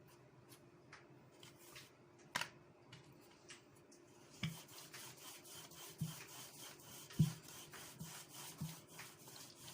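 Rolling pin rolling semolina dough out thin on a board: faint rubbing, with a few light knocks in the second half.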